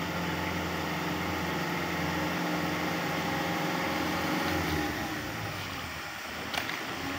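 Truck engine running steadily at low revs, a low hum that weakens about five seconds in. A single sharp click comes near the end.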